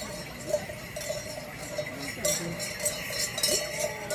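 Many small bells on a decorated festival horse's harness jingling in time with the horse's walking steps, about two jingles a second, growing louder about halfway through as the horse comes closer.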